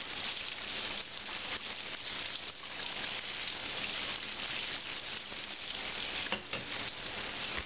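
Cold tap water running from a kitchen faucet and splashing onto boiled potato cubes in a metal colander, a steady hiss. The potatoes are being rinsed in cold water to stop them cooking.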